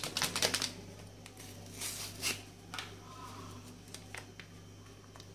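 Crinkling and rustling of a small flan-powder sachet being torn open and handled by hand, in short bursts at the start and again about two seconds in, over a faint low hum.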